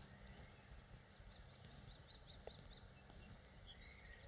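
Near silence with faint birdsong: a quick run of about nine short, high chirps, followed by a few more faint calls near the end.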